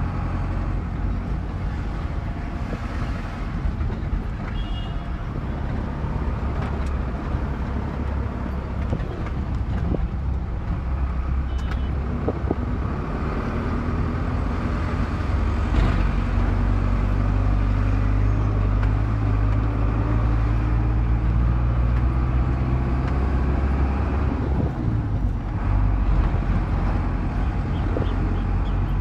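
Engine and road noise of a moving vehicle heard from inside its cabin. About halfway through, the engine note rises slowly as the vehicle picks up speed, then drops off and settles again a few seconds before the end.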